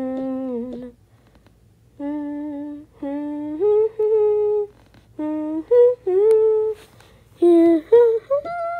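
A person humming a little made-up tune in a high voice, a series of held notes stepping up and down with short breaks between phrases and a longer pause about a second in.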